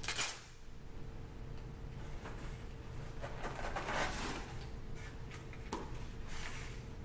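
Handling sounds: the paper backing of an adhesive label rustling as it is peeled, then the foam lid of a polystyrene shipping cooler scraping and clicking as it is worked loose and lifted off. A faint steady hum lies underneath.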